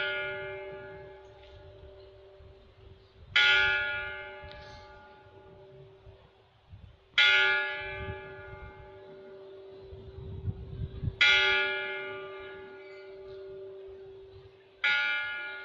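A single bell tolling slowly, one stroke about every four seconds, each stroke ringing out and fading before the next: a memorial toll during a minute of silence for the fallen.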